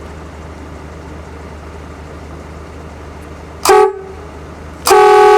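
Newly fitted air horns on a Volvo B10 bus sounding a test: a short blast about three and a half seconds in, then a longer blast near the end, both loud and on one steady pitch, over a steady low hum.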